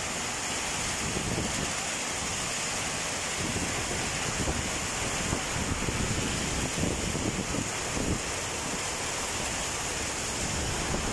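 Heavy rain pouring down, a steady dense hiss, with uneven low buffeting against the microphone from about three seconds in.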